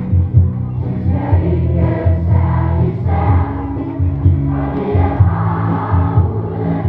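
A large crowd of children and adults singing together over amplified music with a steady bass beat of about two a second.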